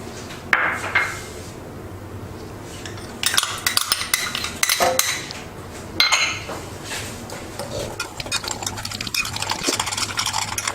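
A spoon clinking and scraping against a bowl while semolina and yogurt are mixed together: a few separate clinks, then quicker, steadier stirring and scraping toward the end.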